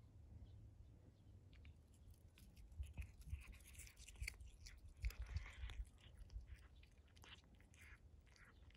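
A cat biting and chewing blades of fresh green grass: a run of small crunching bites that starts about two seconds in, is busiest in the middle, and thins out toward the end.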